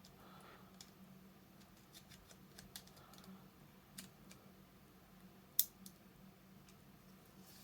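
Faint clicks and taps of small hand tools working on a model locomotive's motor, with one sharp click about five and a half seconds in as the motor's suppression capacitor is taken out. A faint steady hum lies underneath.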